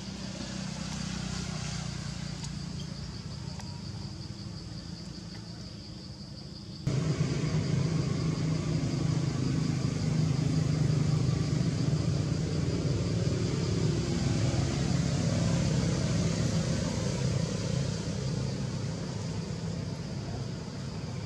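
Outdoor background noise: a steady low rumble with a steady, finely pulsing high-pitched drone above it. The rumble jumps suddenly louder about seven seconds in and stays up.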